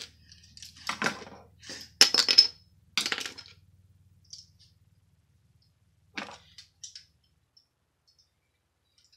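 Plastic Lego pieces clicking and clattering as they are handled: a string of short, sharp clicks and rattles, loudest about two seconds in, then a couple of lighter clicks before it goes quiet.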